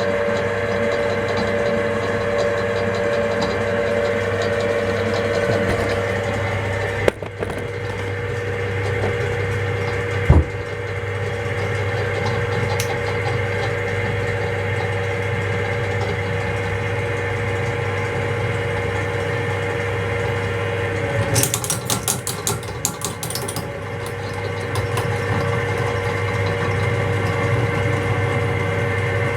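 Soviet drill press running steadily at its lowest speed, a low hum with a steady whine. Two sharp knocks come about a third of the way in, and about two-thirds through there are a few seconds of rapid high clicking.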